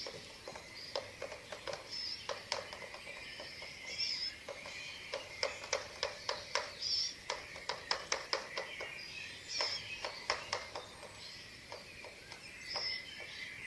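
Many sharp clicks and snaps at the eagle-owl nest, in irregular runs that are densest in the middle. Short high chirps and a steady high background hum of insects or night birds sit between them.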